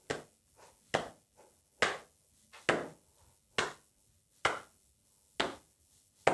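Hands patting the knees in turn through trousers, a steady beat of about seven pats a little under a second apart: body percussion keeping time.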